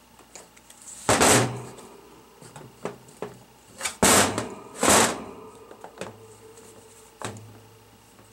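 Aluminium hydraulic pump housing handled on a metal workbench: three loud, short scraping clunks as it is turned over and set down, about a second in and then twice close together around four to five seconds, with a few lighter clicks between.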